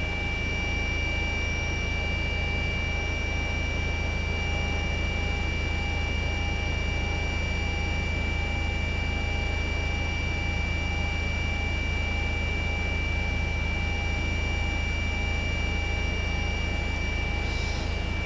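Helicopter cabin noise: a steady low rotor and engine rumble with a constant high turbine whine.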